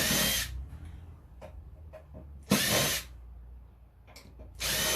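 Cordless drill-driver spinning in three short bursts of about half a second each, at the start, about two and a half seconds in and near the end, with a high whine in each burst: screws being driven out to free a computer's power supply.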